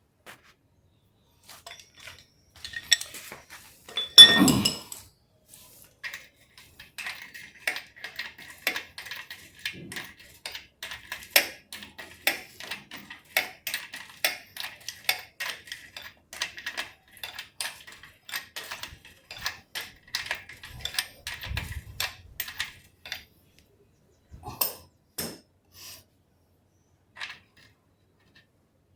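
Metal tools and parts clinking and tapping, with one louder metallic knock about four seconds in, followed by a long run of quick light clicks and a few scattered knocks near the end.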